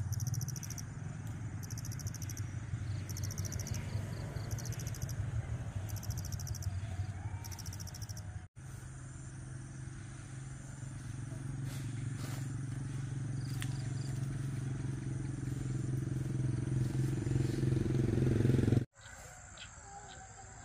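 A steady low engine hum that grows gradually louder through the second half and cuts off suddenly near the end. Over it in the first half comes a regular high chirping of insects, pulsing about once a second.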